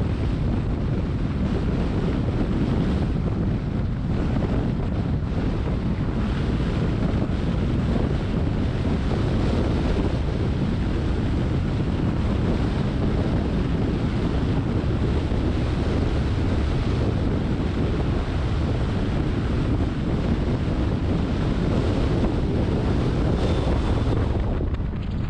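Steady low rumble and hiss of a car driving on wet streets in the rain.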